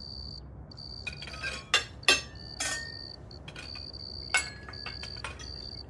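Sound effects for a night-time meal: a cricket chirping in short trills that start and stop, with scattered light clinks of cutlery against plates and glasses.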